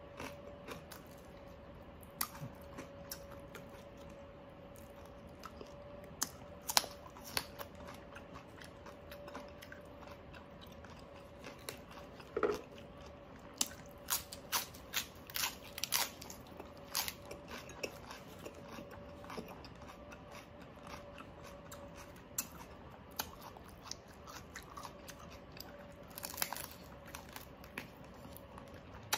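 Close-miked chewing and crunching of crispy deep-fried pork knuckle skin and fresh lettuce, with sharp irregular crunches that come thickest in the middle and again near the end. A faint steady hum runs underneath.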